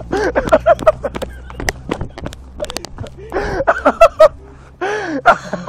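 Boys laughing breathlessly and gasping in short bouts, with sharp knocks and clicks from handling the camera. A low steady hum underneath fades out about three seconds in.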